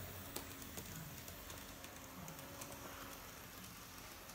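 Kato N-scale model trains running on track: quiet, irregular light clicking of the wheels on the rails, over a faint steady hum.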